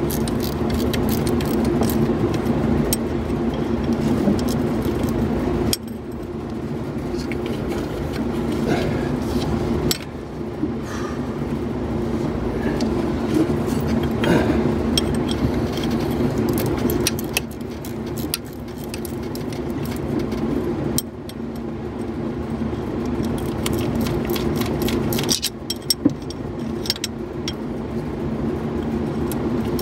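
A hand wrench clicking and clinking on metal as the air compressor's mounting bolts are snugged up, with short scattered clicks over a steady mechanical hum.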